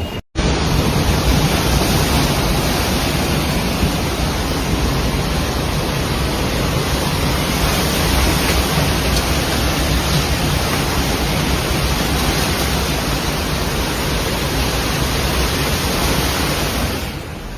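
Steady roar of rushing floodwater from a river in flash flood, with a brief dropout to silence just after the start.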